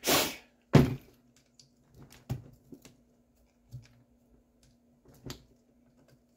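A rustle and a sharp knock as the RC buggy is handled and set down. After that come scattered light clicks and scratches of a metal pick digging packed dirt out of the chassis screw heads, over a faint steady hum.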